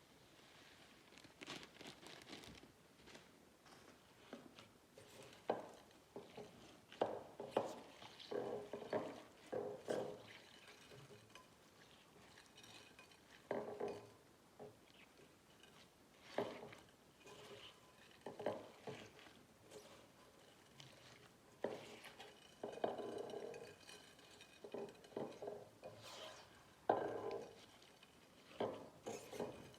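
Slime being worked and mixed with add-ins, giving irregular short squelches and sticky clicks, some in quick clusters.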